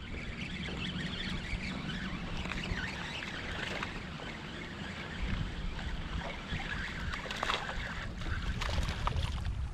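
Wind and small waves lapping against an aluminum jon boat, a steady wash with a few faint clicks in the second half.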